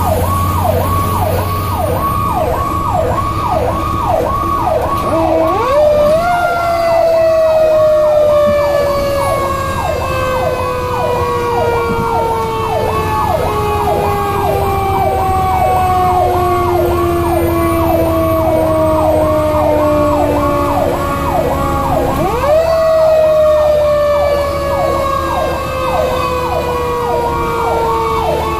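Fire truck sirens heard from inside the cab of a 2002 Pierce Lance rescue truck: an electronic siren in a fast yelp, about two cycles a second, and a second siren that rises sharply about five seconds in, slowly falls away, then rises again near the end. The truck's engine drones underneath.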